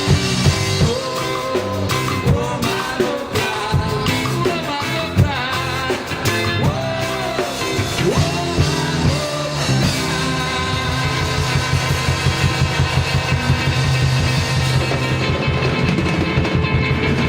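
Live band playing a reggae song, with bass, guitar and drums. A gliding melodic line runs over the top in the first half, then from about halfway the accompaniment turns to a denser, steady beat.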